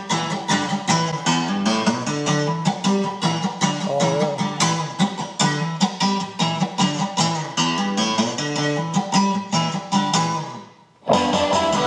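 A song with strummed and plucked guitar, played loud on a motorcycle's newly installed aftermarket audio system (Soundstream HDHU.9813RG radio, Precision Power speakers and 800 W amp). Near the end the music drops away briefly and a different track starts.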